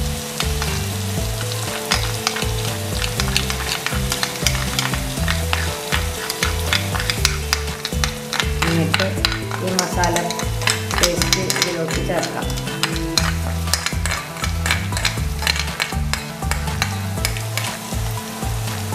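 Onion-tomato masala sizzling in a non-stick frying pan while a steel spoon scrapes chilli and coriander powder paste from a small dish into it and stirs, with frequent clicks and scrapes of metal against the pan.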